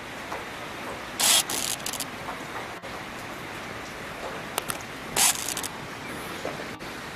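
Steady hiss of rain falling, broken twice by short, loud bursts of hiss, about a second in and about five seconds in.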